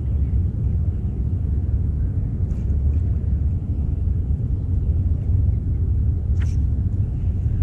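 A steady low rumble with no distinct pitch, with a brief sharp click about six and a half seconds in.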